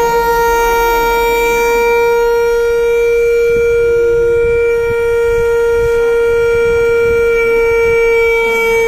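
A homemade vuvuzela blown in one long note that holds a single steady pitch.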